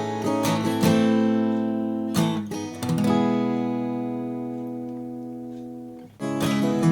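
Taylor PS14ce Grand Auditorium acoustic guitar being played: several chords in the first couple of seconds, then a chord struck about three seconds in and left to ring, fading slowly, before the playing picks up again near the end.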